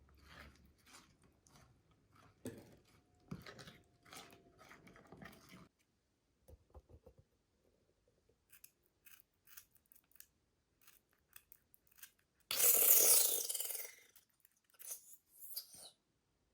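Slime being squished and poked by hand: scattered small sticky clicks and pops, with one louder, noisier squish lasting about a second and a half, about three quarters of the way through.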